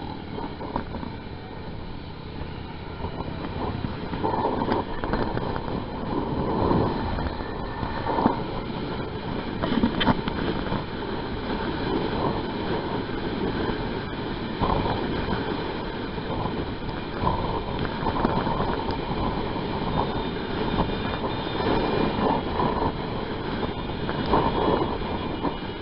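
Wind rushing over the microphone of a camera on a moving vehicle, mixed with engine and road noise in a steady rumble.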